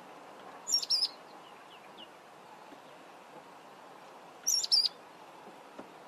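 Mousebird calling twice, about four seconds apart, each call a short run of quick, high whistled notes.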